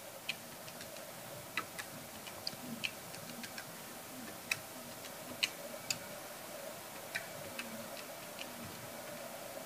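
Keys of a small handheld calculator being pressed with a pen tip while numbers are entered: about a dozen faint, irregular clicks spread over several seconds.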